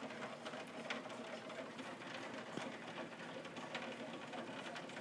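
Torrential rain pattering, a dense steady hiss full of sharp drop ticks, over a faint steady hum.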